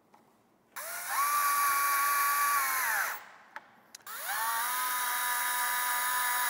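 Cordless drill driving pocket-hole screws into a wooden railing cap, run twice. Each time it whines up to speed, holds steady for about two seconds, then winds down.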